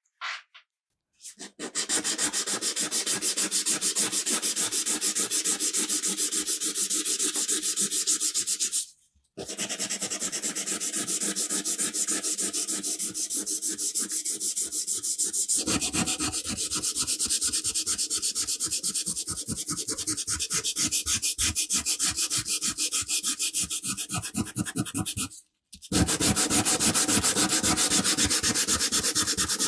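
Sandpaper rubbing on a metal car-horn part in rapid, even back-and-forth strokes. The sanding runs in three stretches, broken by two short pauses.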